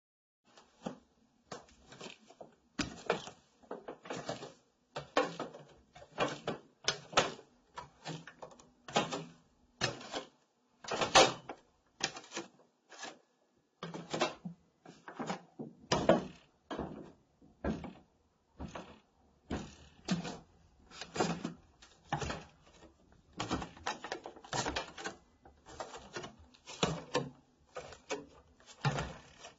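Bare feet walking on wooden stairs, a steady run of soft footfalls with the wooden treads creaking and squeaking under the weight.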